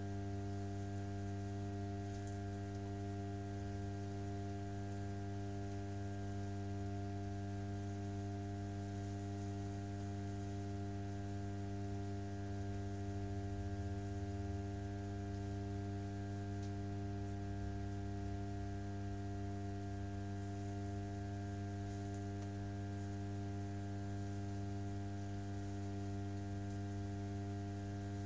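Electric pottery wheel turning slowly, its motor giving a low, steady hum with several higher tones stacked above it.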